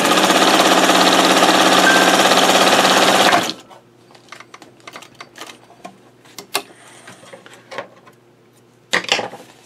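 A 1915 Singer 66 sewing machine, driven by a 7,000 RPM Alphasew NA35 motor, stitches fast through folded cloth as a rapid, even chatter for about three and a half seconds, then stops suddenly. Faint clicks and rustles follow as the cloth is handled.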